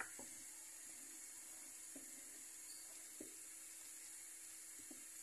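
Near silence: a faint steady hiss with a few soft, scattered taps of a wooden spoon stirring soup in a pot.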